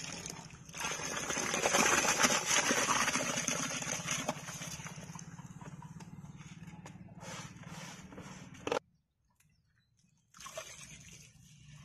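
Seeraga samba rice poured from a basin into a large aluminium pot of boiling water: a loud rushing hiss for about three seconds, settling into the softer steady bubbling of the pot boiling. The sound cuts out for about a second and a half near the end, then the boiling is heard again.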